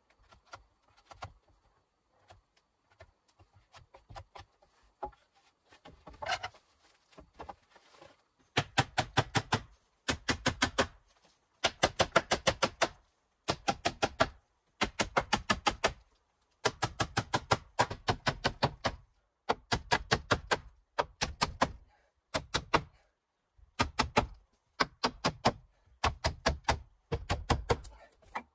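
Light scraping and tapping of a blade trimming a wooden pole, then hammer blows on wood: runs of five to eight quick, sharp strikes with short pauses between, driving wooden poles and stakes into place.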